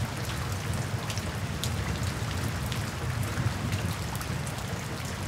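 Steady rain-like water ambience: an even hiss with scattered small drop-like ticks over a low rumble.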